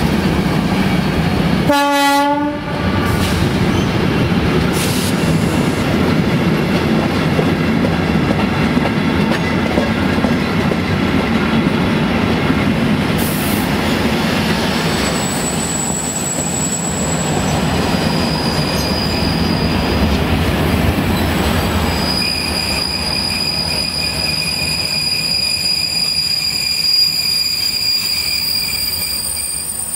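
Freight train's covered box wagons rolling past, a steady rumble of steel wheels on the rails. A short pitched tone sounds about two seconds in, and from about halfway the wheels squeal in high, steady tones.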